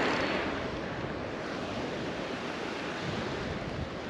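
Surf breaking and washing up on a sandy beach, a steady rushing noise, with some wind on the microphone.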